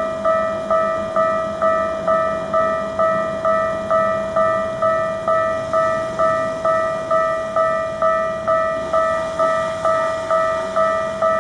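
Japanese railway level-crossing alarm ringing its repeated 'kan-kan' tone, about two strikes a second, each strike decaying before the next. Underneath it is the rumble of a Keikyu New 1000 series train running past.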